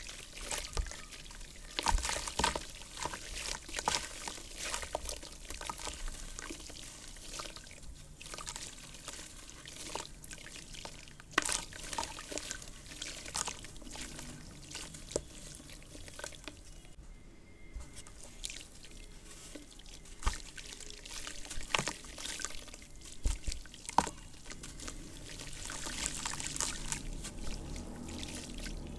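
Wet red dirt crumbling with water: irregular crackles and small clicks of falling crumbs mixed with pouring and dripping water, with louder bursts now and then.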